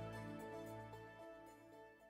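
Background music with held notes, fading out.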